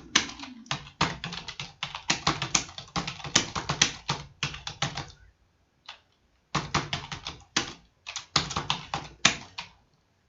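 Computer keyboard being typed on: fast runs of keystroke clicks, breaking off for about a second and a half past the middle, then a last run that stops shortly before the end.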